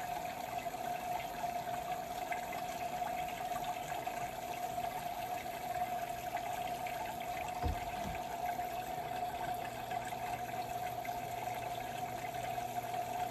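Water splashing and trickling down inside a 3D-printed hydroponic tower, circulated by an 800-gallon-per-hour submersible pump, with a steady hum throughout. A single light knock about eight seconds in.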